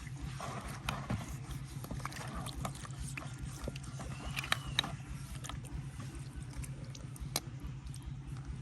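Scattered sharp metallic clicks and taps, like hand tools working on metal, over a steady low machine hum. A couple of short rising chirps come about halfway through.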